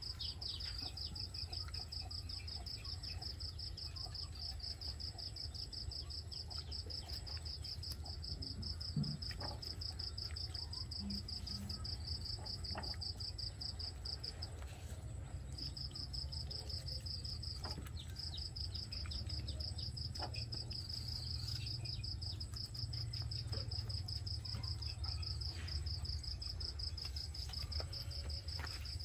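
Insects trilling steadily in a fast-pulsing high note, breaking off briefly twice near the middle, with a few faint soft clicks from hands working the squid against the board.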